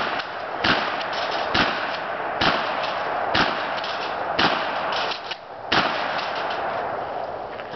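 Shotgun fired in a steady string: about seven loud shots, roughly one a second, each followed by a lingering echo. Fainter ticks sound between the shots. After the last shot, about three-quarters of the way in, the echo fades out.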